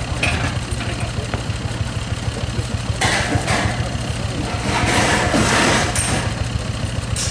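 An engine idling steadily with a low, even pulse, while aluminium loading ramps are pushed into a trailer bed, giving noisy metal scraping and rattling about three seconds in and again around five to six seconds in.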